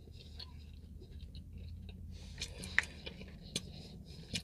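Close-up chewing of a mouthful of jambalaya with sausage: soft, wet mouth sounds broken by a few sharp clicks.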